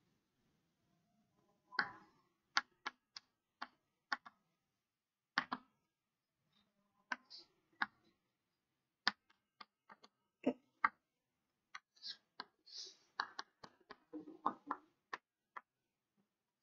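Chalk on a chalkboard while words are written: a run of short, sharp taps and clicks at an uneven pace, with a few brief scratchy scrapes about three quarters of the way through.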